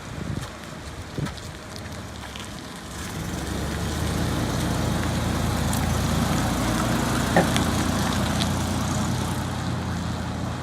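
Chevy Astro van's engine running, growing louder about three seconds in as the van pulls away at a crawl.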